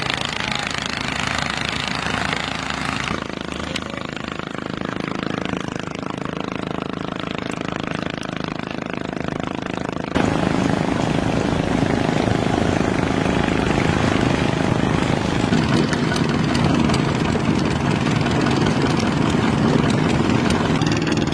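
Longtail boat engine running at a steady drone with an even pitch; the sound steps up louder about ten seconds in.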